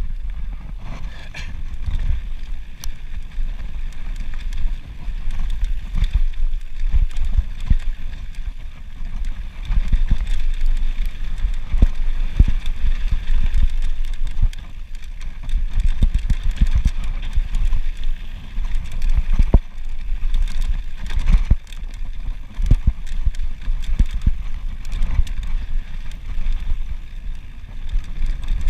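Mountain bike riding down a rough dirt singletrack, with wind buffeting the microphone and frequent rattles and knocks as the bike goes over bumps and stones.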